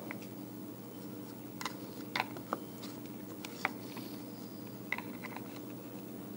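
Faint, scattered clicks and taps of needle-nose pliers and a pick working against a plastic recoil starter housing while a pull cord is fished through it, over a steady low hum.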